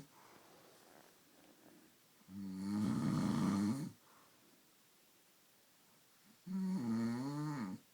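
A man snoring loudly in his sleep: two long snores about four seconds apart, each lasting about a second and a half.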